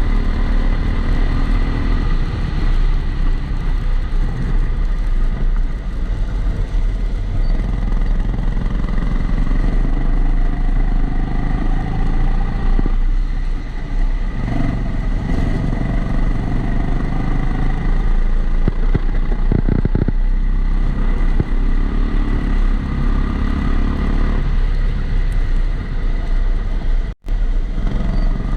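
Onboard sound of a Kombikart Eco kart's engine running at speed, its pitch rising and falling with throttle through the lap, muffled by the camera's waterproof housing, with a steady high-pitched whine over it. The sound cuts out for a split second near the end.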